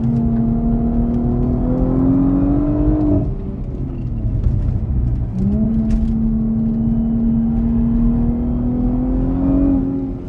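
Audi S5 B9's turbocharged V6, fitted with an APR DTR8868 turbo, pulling under load with its pitch climbing slowly. About three seconds in the revs drop away, and about five seconds in it pulls again, climbing steadily until a brief dip near the end.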